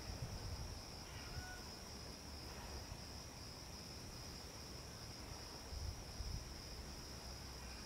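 Steady, high-pitched insect chirring in the background, with a low rumble of wind on the microphone that swells briefly about six seconds in.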